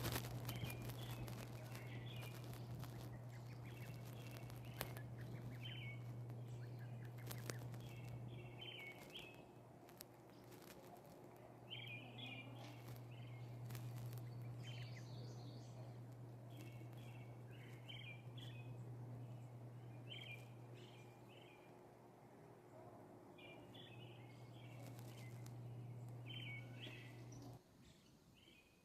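Small birds chirping in short, repeated bursts, over a steady low hum that breaks off for a few seconds about a third of the way in and stops near the end.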